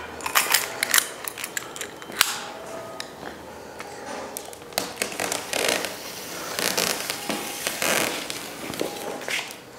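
Irregular crinkling, scraping and sharp clicks of materials being handled and moved around, in a small room.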